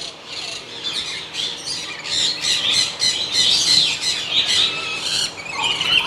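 Caged parrots squawking and screeching, a constant run of short, harsh, high calls overlapping one another.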